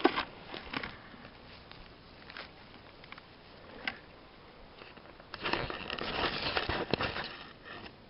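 Dry lichen and forest-floor litter crackling and rustling close to the microphone as a boletus mushroom is pulled up and handled. A few sharp snaps come in the first four seconds, then a denser stretch of crackling from about five to seven seconds in.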